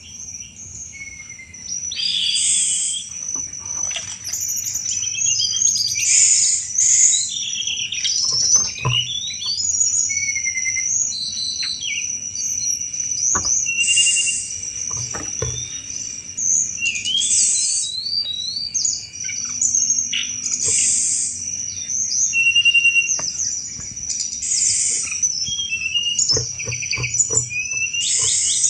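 Tledekan gunung singing hard: repeated bursts of rapid chattering 'cetrekan' notes mixed with short sweeping whistles, every second or two. A steady high-pitched tone runs beneath throughout.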